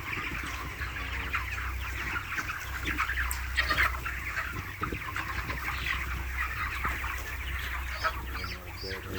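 A large flock of chickens in a poultry shed, many birds clucking and calling at once in a continuous dense chatter, with a steady low hum underneath.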